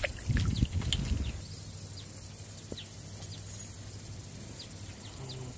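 Insects, crickets by their sound, trilling steadily and high-pitched in the marsh grass, with short chirps scattered over it. A brief low rumble comes in the first second and a half.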